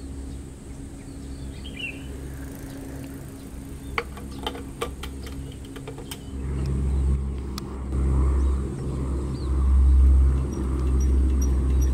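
A diesel engine idles steadily, with a few sharp metallic clicks and clanks about four to five seconds in. Then a much louder, heavier engine rumble takes over, swelling and easing every second or two.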